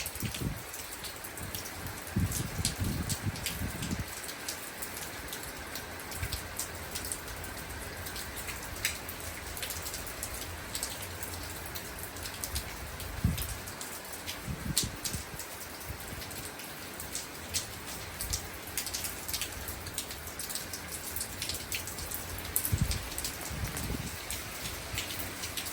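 Steady rain, with many sharp ticks of individual drops striking a nearby surface. There are a few brief low bumps about two to four seconds in, again near the middle and near the end.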